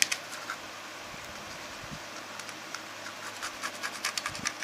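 Pencil scratching marking lines on wood: short scratchy strokes, a few scattered at first, then many in quick succession near the end.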